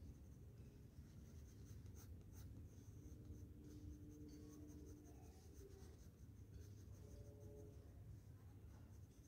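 Faint scratching of a coloured pencil shading on drawing paper, in light, irregular strokes.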